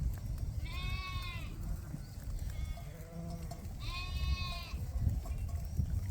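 Sheep bleating: two high-pitched bleats about three seconds apart, with a shorter, lower bleat between them, over a steady low rumble.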